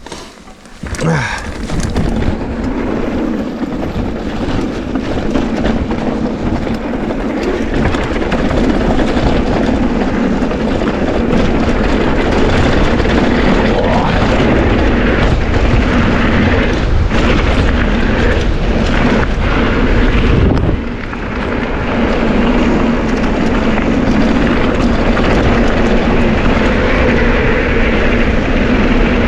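Mountain bike riding downhill on a bike park trail: a continuous rushing roar of tyres on dirt and the bike rattling. It sets in about a second in and runs on, with a brief dip just after twenty seconds.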